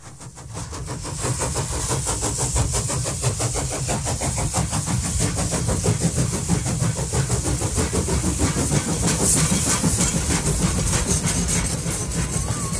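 Electric tram running along the track, heard from on board: a steady low rumble of the running gear and wheels on the rails, with a continuous fine rattle and hiss. It fades in over the first second.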